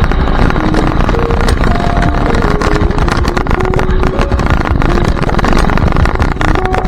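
Radio-controlled car driving, heard from an onboard camera: a loud, steady rumble full of knocks and rattles. A melody of short held notes plays over it.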